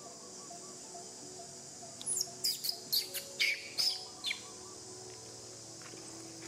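Steady high drone of insects, broken about two seconds in by a rapid run of about eight sharp, high animal calls, each sweeping downward, lasting about two seconds.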